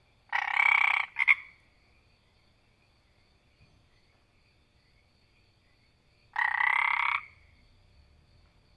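A frog croaking: a rasping call of under a second, a quick double note, then after a pause of about five seconds another call of under a second.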